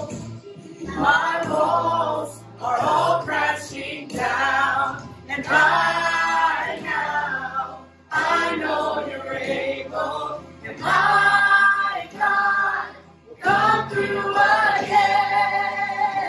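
A family group of adults and children singing a worship song together, men's, women's and children's voices in unison phrases with brief breaks between lines.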